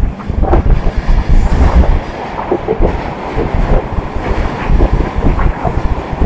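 Passenger train carriage running along the track, heard from inside: a loud, steady low rumble from the wheels on the rails, with irregular knocks and rattles.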